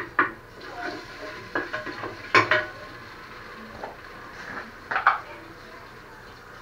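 Kitchen utensils clinking and clattering against a cooking pot in an irregular series of sharp, ringing strikes. The loudest comes about two and a half seconds in and another about five seconds in.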